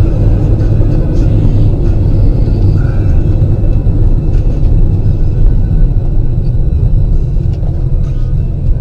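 Steady low rumble of a car driving, as picked up by a dash cam, with no crash impact heard.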